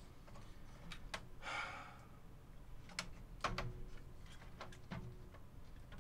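Hands handling the plastic parts and cable connectors inside a Sony EV-S9000E video recorder: scattered light clicks and taps, one every second or so, with a short soft hiss about a second and a half in.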